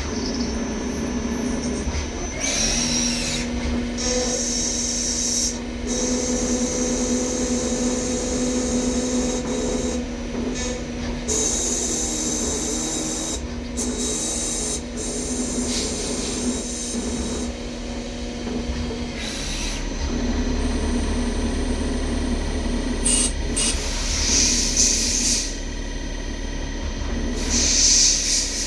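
CNC machine running, with a steady motor hum and repeated spells of high hissing.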